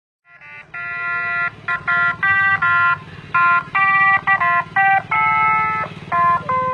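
An ice-cream vendor's jingle, a simple tune of electronic notes played through a horn loudspeaker on a motorbike ice-cream cart, starting about half a second in. The motorbike's small engine runs steadily underneath.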